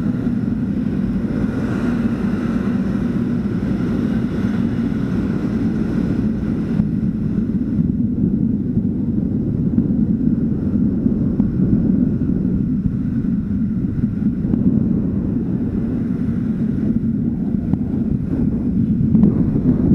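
Motor scooter engine running steadily close to the microphone, with low wind rumble on the microphone as the scooter rides along. There is more hiss in the first few seconds, then a steadier low drone.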